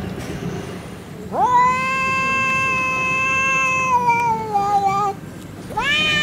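Two cats in a face-off yowling at each other, the drawn-out warning calls of a cat fight standoff. One long yowl rises about a second in, holds for nearly four seconds and sags at the end; a second rising yowl begins near the end.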